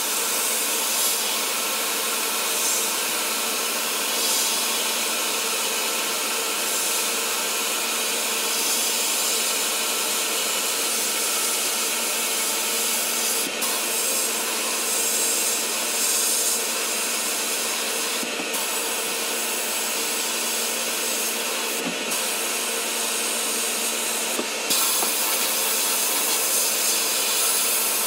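Sandblasting cabinet's blast gun running: a steady hiss of compressed air and abrasive stripping paint and rust off the pressed-steel cab of a 1940s Buddy L toy dump truck, over a steady low hum. The hiss drops out briefly four times in the second half as the trigger is let off.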